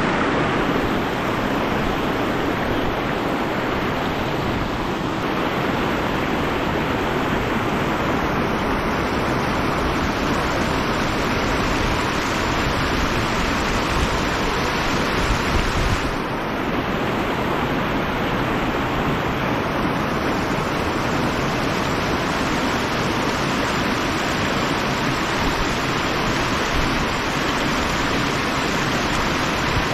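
Fast river current rushing over a shallow, rocky riffle: a steady, loud wash of water noise, with some irregular wind rumble on the microphone.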